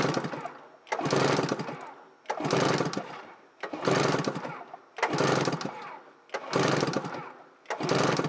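2002 Polaris Edge X 600 two-stroke twin being cranked over by repeated pulls of the recoil starter, about one pull every second and a half, seven in all, each starting suddenly and fading out. This is a compression test on the clutch-side cylinder, which builds to 124 PSI, even with the mag side's 125 PSI.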